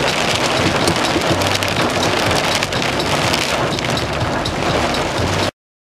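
Heavy wind-driven rain pelting a truck's windows and body in a severe windstorm, heard from inside the cab as a loud, dense patter of drops. It cuts off abruptly near the end.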